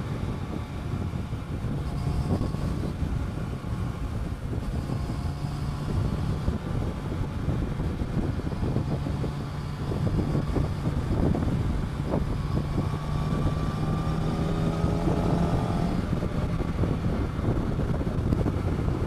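Yamaha FZ1's inline-four engine running as the motorcycle is ridden on the road, mixed with wind noise on the microphone. The engine note rises in the second half as it pulls away.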